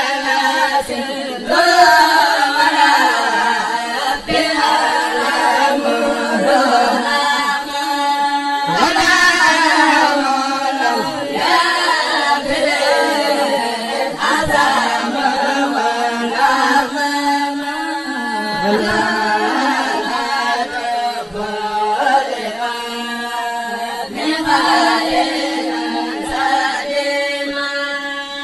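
A Mouride kourel, a group of chanters, singing a xassida (Sufi devotional poem) a cappella in long, rising and falling melodic lines.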